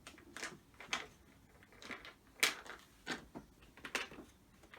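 Irregular sharp clicks and scrapes of a screw and screwdriver being worked into a plastic mounting hole on a pressure washer's housing, about eight strokes, the loudest about halfway through.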